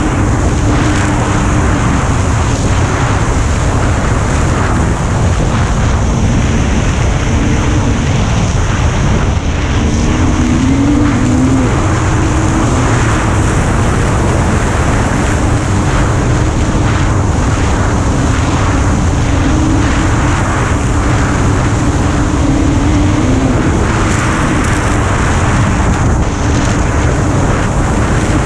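Snowmobile engine running steadily at trail speed, its pitch wavering slightly up and down, with wind rushing over the microphone.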